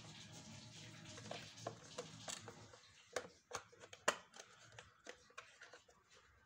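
Handling noise from a vacuum cleaner's plastic motor housing being turned over in the hands: a series of sharp clicks and knocks, the loudest about four seconds in. Under them there is a faint steady background hum in the first half.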